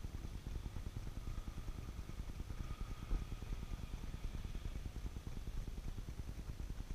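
Steady low outdoor rumble, with a faint whine that comes in about a second in and fades out around five seconds.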